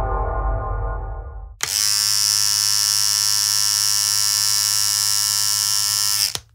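Outro music fading out, then a steady electrical buzz sound effect for a neon-sign logo, starting suddenly about a second and a half in and cutting off abruptly near the end.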